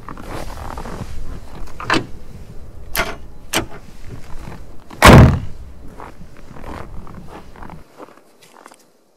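Nissan Y60 Safari's TD42T turbo-diesel inline-six idling, with a few sharp knocks. About five seconds in comes the loud slam of the bonnet being shut, after which the engine is heard more quietly.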